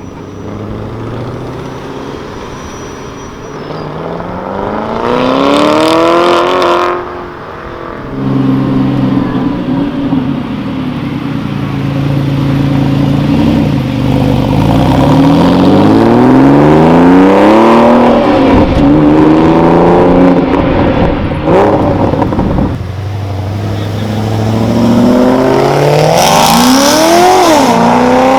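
Performance car engines revving and accelerating hard several times. The engine note climbs steeply through the revs, drops off, and climbs again, with short sharp cracks at a few points.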